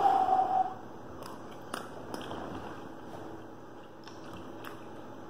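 A person biting into a forkful of soft pasta and chewing it, with a louder moment in the first second as the bite is taken. Then quieter chewing with a few faint clicks.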